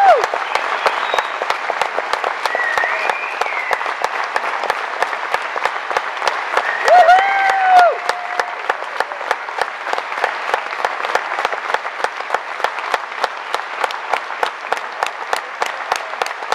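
Concert audience applauding, with a couple of loud whoops about seven seconds in. In the second half the applause settles into steady rhythmic clapping, about three claps a second.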